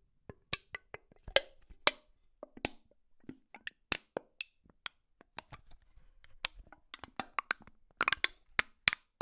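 A run of sharp, irregular clicks and knocks, a few per second, with a quicker cluster near the end.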